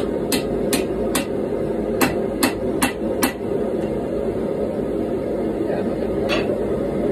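Hand hammer striking hot steel on an anvil while forging a GoMai blade: three quick blows, a short pause, four more, then a single blow near the end. Under it the gas forge's burner runs with a steady rush.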